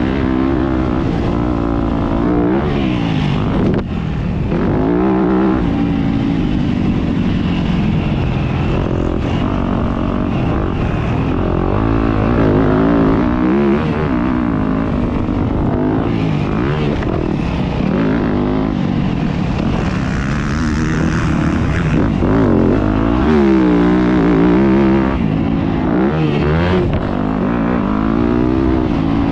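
Yamaha YZ250F's four-stroke single-cylinder engine heard onboard during a motocross race, its pitch climbing and falling over and over as the throttle is opened and closed.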